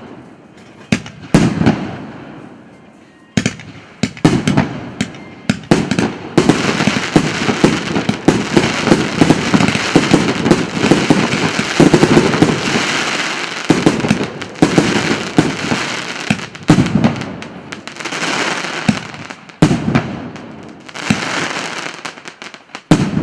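Firework battery (cake) P8273 «Самый самый» firing: a series of sharp shot and burst reports that thicken into a dense stretch of continuous crackling in the middle, then come again as spaced groups of bursts near the end.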